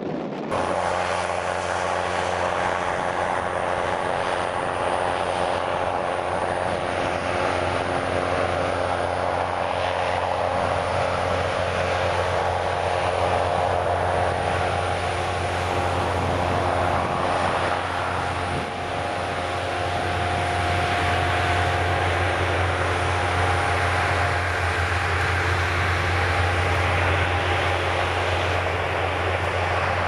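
Twin-turbofan business jet on approach with its landing gear down, its engines giving a steady drone: a low hum under a broad roar, starting about half a second in and holding level throughout.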